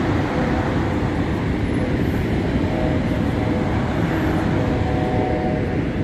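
Steady roar of Niagara Falls: an even, loud rushing of falling water that does not let up.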